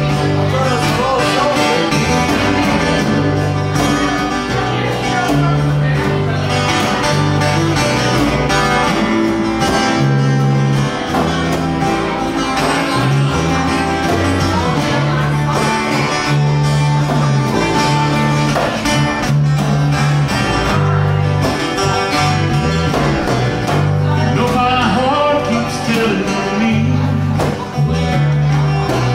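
Small live band playing a country song: strummed acoustic guitars over a steady electric bass line.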